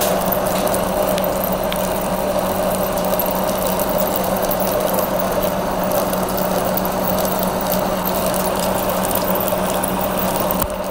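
Monarch engine lathe rough-turning a cold-rolled steel bar dry with a carbide LNMX insert on a heavy cut. The lathe hums steadily under load, with a constant crackle and tinkle of breaking chips falling into the chip pan.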